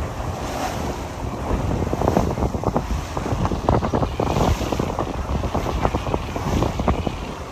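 Wind buffeting the microphone over water rushing and splashing along the hull of a sailboat under way, with many short crackles.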